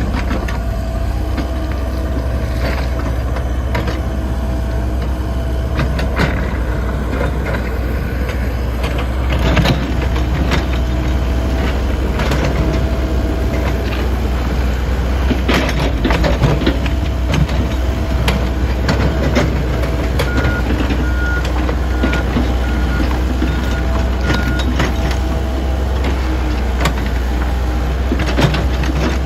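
A Komatsu PC78 excavator's diesel engine runs steadily under load as it pushes a stuck truck, with a constant low rumble and scattered knocks and clanks of metal. A little past the middle, a reversing alarm beeps about twice a second for roughly four seconds.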